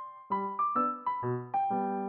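Background piano music: a melody of separate notes that each ring and fade, with lower notes joining in about a third of a second in.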